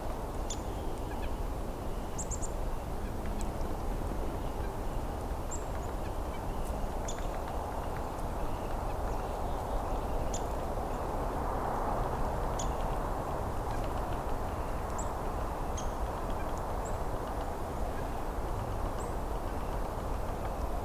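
Winter woodland ambience: a steady low rush, with short, thin, very high bird call notes scattered throughout.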